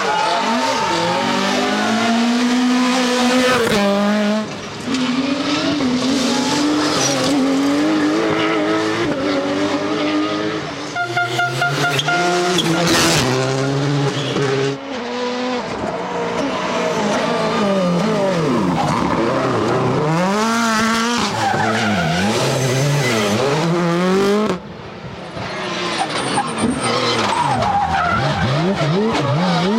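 Rally cars driven hard on a special stage, engines revving up and dropping through gear changes as they come past one after another, with tyre squeal in the corners.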